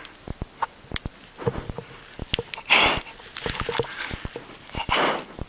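A person breathing hard in short, hissing breaths about once a second, with many sharp clicks and snaps of rapeseed stalks brushing and breaking against the paramotor harness and camera.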